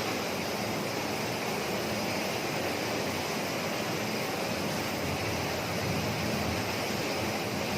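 Heavy rain falling, a steady, even rushing hiss.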